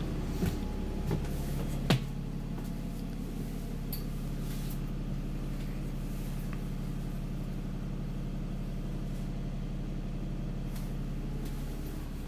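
Alexander Dennis Enviro400 MMC double-decker bus standing at idle, heard as a steady low hum inside the upper deck. Two sharp knocks come in the first two seconds.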